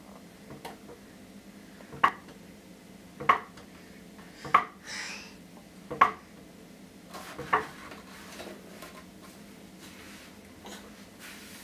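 Wooden rocking horse knocking sharply as it rocks on a tiled floor: five hard wooden clacks about one and a half seconds apart, then quieter rocking near the end.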